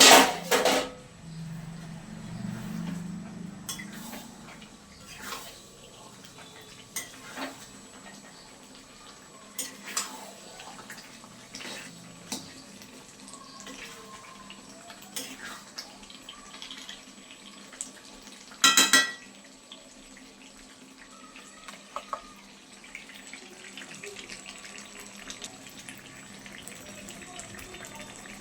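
Metal utensils clinking and scraping in a cooking pot as the frying mutton is stirred and checked, with scattered sharp clinks. There is a loud clatter right at the start and a loud ringing metal clang about nineteen seconds in.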